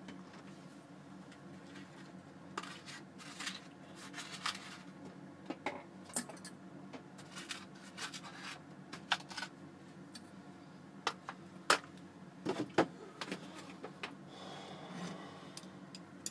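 Scattered light clicks and knocks of kitchen items being handled, the sharpest ones about two-thirds of the way through, over a steady low hum, with a soft rustle near the end.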